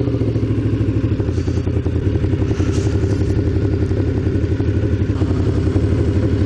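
Honda VFR motorcycle's V4 engine running steadily at low revs, an even fast pulsing with no rev-up.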